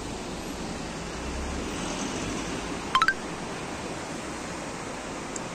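Steady rush of water from a rocky mountain stream. About three seconds in, three quick chirps climb in pitch, the loudest moment.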